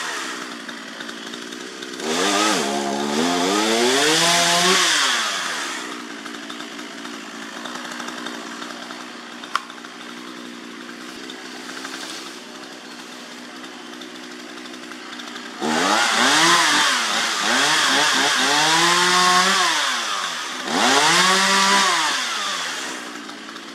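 Two-stroke chainsaw running, revved up and down in three spells with a steady lower idle in between, then shut off abruptly at the end.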